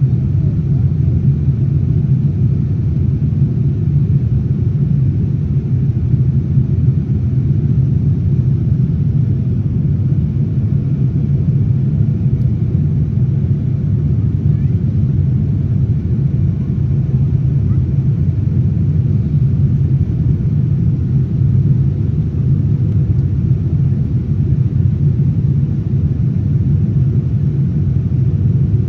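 Steady, low in-flight cabin rumble of a Boeing 787-9, engine and airflow noise heard from a window seat inside the cabin, with no change in level.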